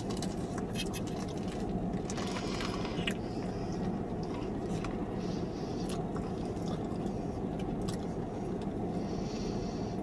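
Chewing and mouth sounds while eating a fried chicken sandwich, with light crinkles from its paper wrapper, over a steady low hum inside a car.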